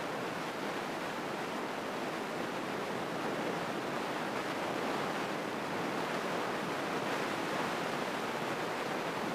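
Steady rushing hiss of a Grumman light aircraft's cockpit noise, from the running engine and propeller while taxiing, heard through the headset intercom feed without any distinct engine tone.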